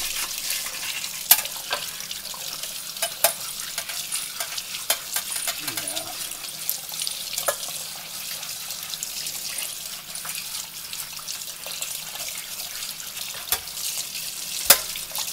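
Tap water running steadily into a sink while a rusty steel lantern burner frame is scrubbed under the stream, with sharp clicks and knocks of metal now and then, the loudest near the end.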